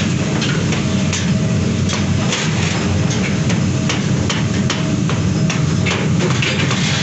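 Short steel bar billets clattering and clinking against each other and a metal barrow as they are tipped onto a heap of billets. Many irregular metallic knocks sound over a steady low hum.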